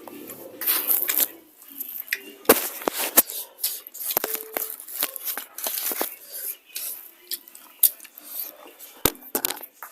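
Eating sounds from a meal of chicken and rice: wet chewing and smacking, with scattered sharp clicks and knocks against plates.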